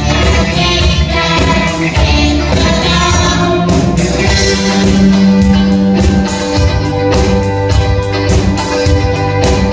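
Music: a song with guitar, singing and a steady beat.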